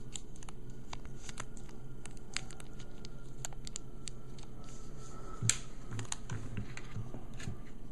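Light plastic clicks and taps as the Numark Orbit's white plastic keypad frame is handled and fitted over the controller's circuit board, with one louder click about five and a half seconds in. A low steady hum runs underneath.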